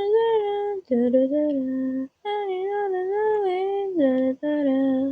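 A solo female voice singing a simple melody unaccompanied, in held, steady notes that step up and down, in four short phrases with brief breaks between them.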